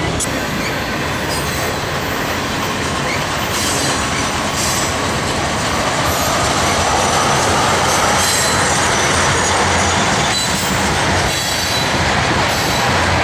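Freight train rolling past on the rails: a steady dense rumble and rattle of steel wheels, with short high squeals and screeches scattered through it, growing slightly louder about halfway through.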